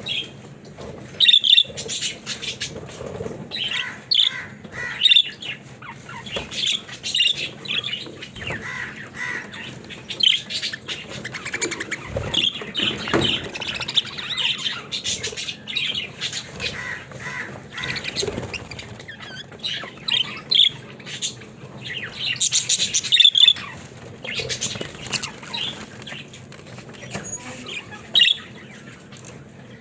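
Budgerigars chirping and chattering in a steady stream of short calls, with louder squawks now and then.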